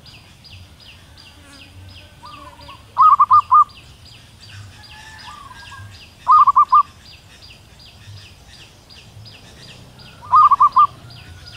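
A female zebra dove calls three times, each call a short burst of four or five quick notes, the uploader's call to attract a male. Each burst follows a softer gliding note. Beneath them runs a fast, steady, high ticking, about five a second.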